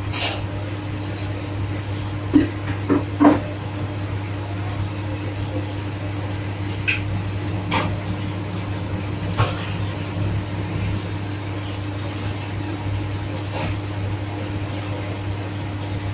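Chicken being hand-breaded in flour: a few metal knocks and clinks from the wire sifting basket and racks, three in quick succession about two to three seconds in, then scattered single clinks, over a steady low kitchen hum.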